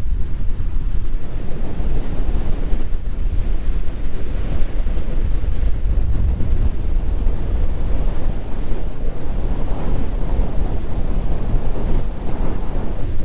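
Strong, gusty wind blasting the microphone despite its windscreen: a loud, low rumble that keeps swelling and easing.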